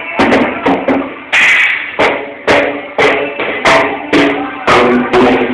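A small child banging on a drum kit: uneven, unpractised strikes coming about three a second, with one longer, hissier hit about a second and a half in.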